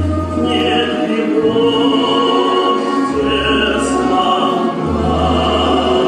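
Recorded music: a choir singing a slow song in long held notes over instrumental accompaniment with deep sustained bass notes that come and go.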